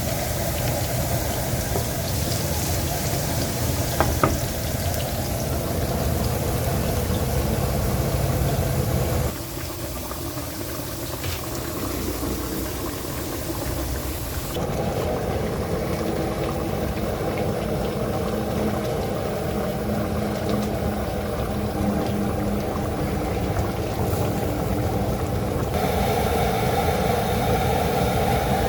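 Pineapple chicken cooking in a pan: liquid bubbling with a steady background hum, and a couple of light clicks about four seconds in. The sound shifts abruptly a few times.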